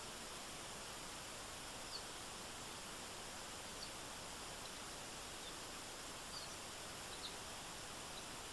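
Steady rushing of a forest stream, with short high chirps of a small bird every second or so, about seven in all.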